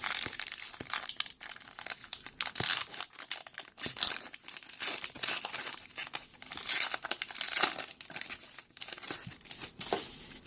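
Trading-card pack wrapper crinkling and tearing as it is ripped open and handled: a dense, irregular run of crackles.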